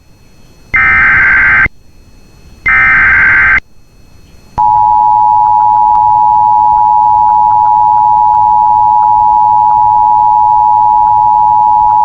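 Emergency Alert System SAME header data: two loud one-second bursts of rapid digital screech, a second apart. From about four and a half seconds in, the steady two-tone EAS attention signal (853 and 960 Hz) sounds, announcing that an alert message follows.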